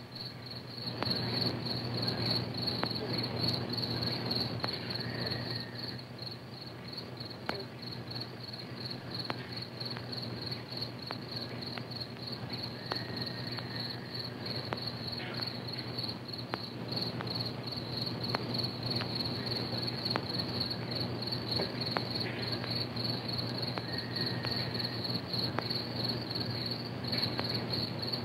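Crickets chirping steadily, a high, rapid and even pulse that never lets up, over a low steady hum and scattered small crackles from an old film soundtrack.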